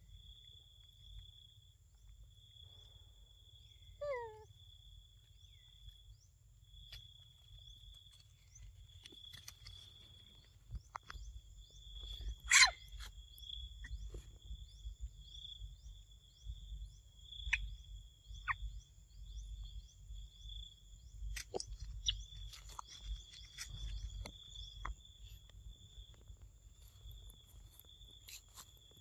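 Outdoor forest ambience: a steady high-pitched buzz throughout, with one short animal call falling in pitch about four seconds in. Scattered light clicks follow, including one sharp knock about halfway through.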